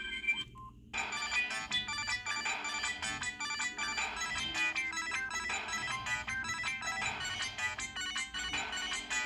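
Samsung SGH-D500C ringtone: one tune cuts off, and after a brief gap a new melody of quick, short notes starts about a second in and keeps playing.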